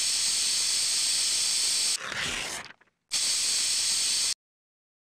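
Aerosol spray-paint can hissing in two bursts: a long spray of about two seconds that turns rougher and fades, then after a short pause a second spray of about a second and a half that cuts off suddenly.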